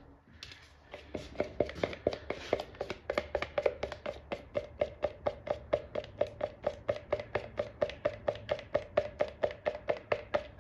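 A stir stick knocking quickly and evenly against the walls of a plastic mixing cup, about four or five strokes a second, as fiberglass resin with its hardener drops is stirred.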